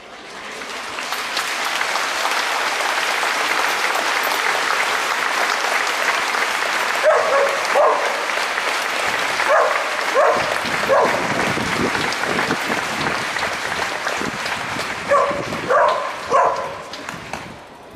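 A large crowd applauding. The applause swells over the first couple of seconds, holds steady and dies away near the end. A few short, sharp calls come in pairs above it, about a third of the way in, around the middle and again near the end.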